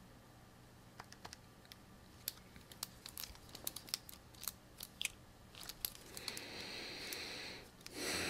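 A run of small irregular clicks, then two short rustling noises, the second louder.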